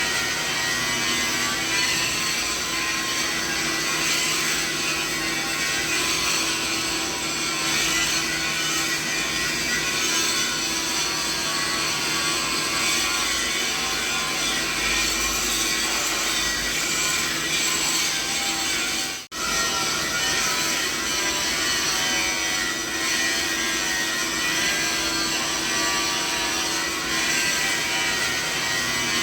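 Continuous mixed machinery noise used as a masking sound: a dense steady hiss layered with many held machine tones. It cuts out for an instant about 19 seconds in, then carries on unchanged.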